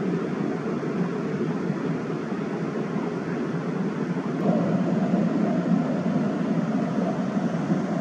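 Stream water rushing steadily over rocks and down a small rapid, a continuous low rushing noise that grows a little louder and fuller about four and a half seconds in.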